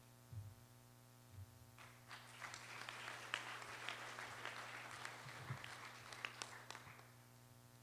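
Applause from a seated group, many hands clapping, starting about two seconds in and dying away near the end, over a steady electrical hum.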